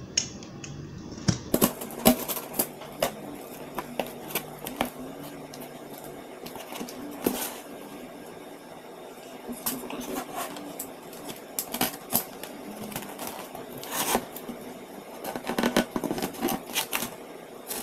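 Orange utility knife cutting through packing tape and cardboard on a shipping box, with irregular sharp clicks, knocks and scraping as the box is handled on a wooden desk.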